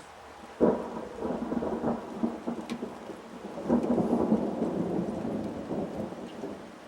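Thunder: a sudden clap about half a second in, rumbling on with a second swell about four seconds in and fading near the end, with rain falling.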